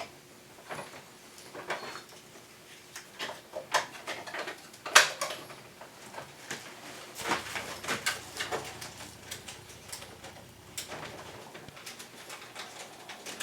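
Irregular clicks and knocks of plastic air-conditioner parts being handled and fitted, with one louder knock about five seconds in.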